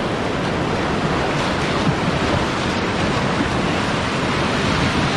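Whitewater rapids rushing in a steady loud wash, with some wind buffeting the microphone.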